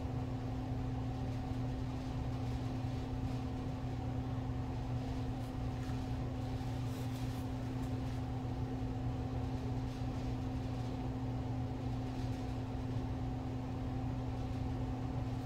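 Steady mechanical hum, like a fan or motor running, made of a low drone with a couple of fainter constant tones above it.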